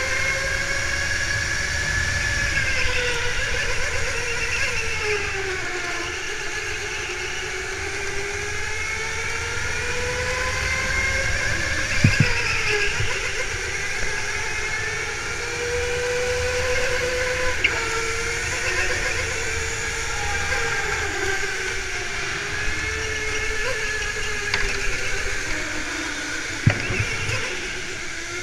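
Go-kart motor whining as it laps, its pitch rising and falling with speed through the corners, over a low rumble from the chassis and tyres. A couple of sharp knocks come about twelve seconds in and again near the end.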